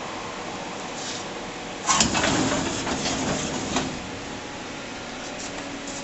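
A steady machine hum from the powered-up CNC lathe, with a sudden clunk about two seconds in followed by a couple of seconds of clattering and clicks.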